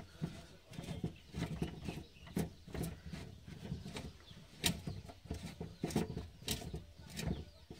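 Irregular metallic clicks and knocks from a steel scissor car jack being handled and adjusted.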